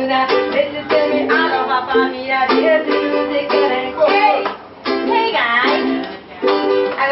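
Live ukulele music: ukuleles strumming chords in a steady rhythm, with a singing voice over them at times and two short breaks in the strumming in the second half.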